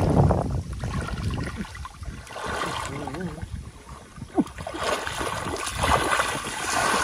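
Shallow water sloshing and trickling as it is stirred up while hand fishing, loudest at the very start, with faint voices now and then.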